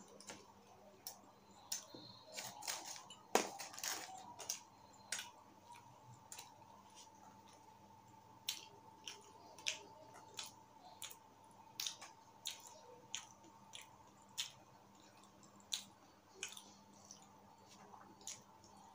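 Mouth chewing a bready, pizza-like pastry, picked up close by a lapel mic: soft, irregular wet clicks and smacks, busiest in the first few seconds, over a faint steady hum.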